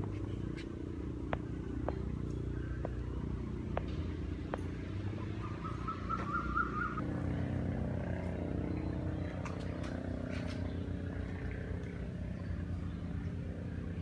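Steady low hum of an engine running, with a brief rising whine about six seconds in and a few light clicks.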